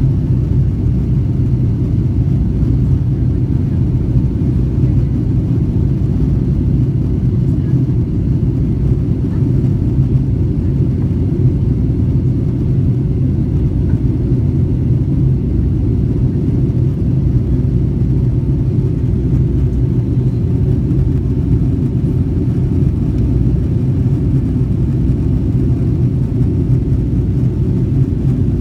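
Steady low rumble of a Boeing 757-200's jet engines and airflow heard inside the passenger cabin, holding an even level throughout.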